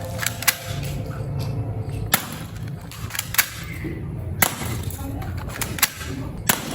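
Toy pistol firing: about six sharp cracks at uneven intervals.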